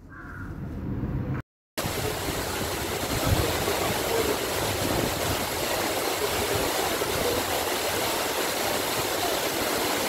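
Silver Cascade waterfall: a steady roar of water pouring down a rock face into a pool. It comes in loud after a brief cut-out about a second and a half in; before that there is only a fainter hum.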